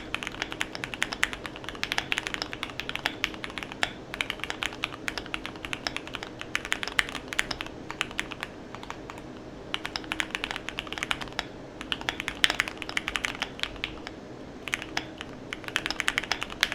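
Typing on a modded Keychron Q1 mechanical keyboard with lubed Gateron Milky Yellow linear switches: rapid keystrokes in flurries broken by short pauses.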